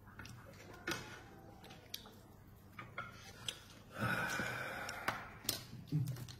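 Scattered clicks and taps of chopsticks against dishes as noodles are lifted and served. About four seconds in comes a crinkling rustle lasting about a second as clear plastic is handled.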